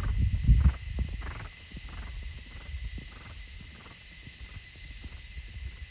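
Hoofbeats of a trotting horse on a sand arena: an even beat of soft thuds, a little under three a second, fading as the horse moves away. A low rumble on the microphone is loudest in the first second.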